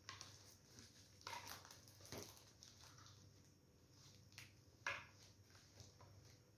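Faint, scattered scratches and light ticks from hand ventilating: a ventilating needle pulling hair through a lace closure on a mannequin head. The sharpest scratch comes about five seconds in.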